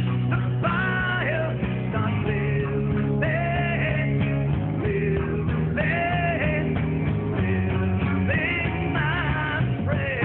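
Rock song with a lead vocal singing long, gliding lines over guitar and a steady low accompaniment.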